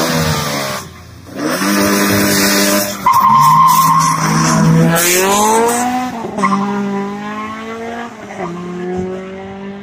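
Race car engine revving hard with tires squealing as a car launches, the engine note rising and falling, then climbing steadily while the sound fades away.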